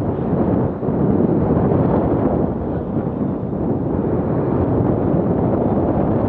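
Wind buffeting the camera microphone as the tandem paraglider flies through the air: a loud, steady, low rushing rumble.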